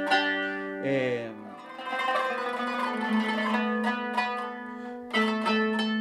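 Kanonaki (Greek qanun, a trapezoidal plucked zither) played with finger picks: a run of plucked notes, a short downward slide in pitch about a second in, then a low note held in fast tremolo picking through the middle before crisp single plucks return near the end.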